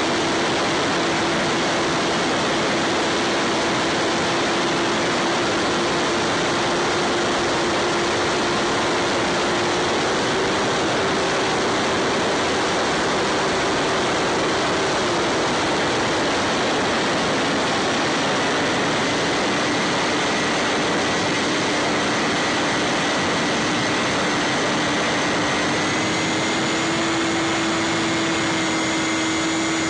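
Bixler 3 foam plane's electric motor and pusher propeller running steadily, recorded on board under heavy wind rush. The motor tone steps slightly up about a third of the way in, drops about halfway, and rises again near the end.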